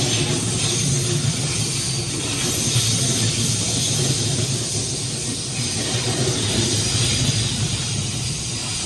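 JR Central 313 series electric train, two units coupled, running past at speed: a steady rumble of wheels on the rails with a hiss over it.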